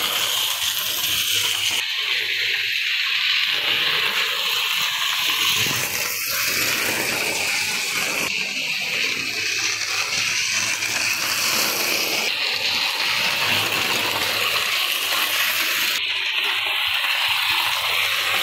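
Hornby OO-gauge model Class 37 locomotive running on track: a steady whirring hiss from its small electric motor and its wheels on the rails.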